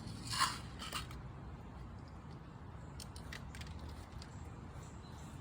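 Small metal clicks and ticks of BBs being handled and loaded into a CO2 BB pistol: a sharp click about half a second in, another near one second, then a few faint ticks about three seconds in, over a low hum.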